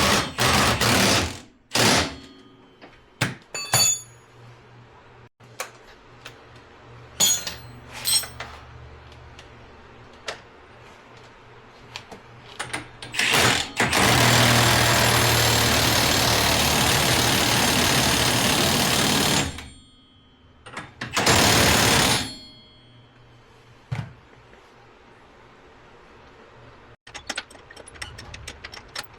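Impact wrench running on nylock nuts of the suspension hardware in bursts: a short burst at the start, a long one of about six seconds in the middle, and another short one about a second and a half after it, with tool clicks and clinks between.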